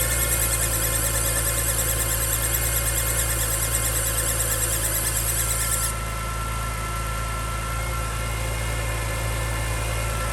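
2005 BMW E46 M3's S54 inline-six idling with a high-pitched squeal over it. The squeal cuts off suddenly about six seconds in and the engine keeps running steadily.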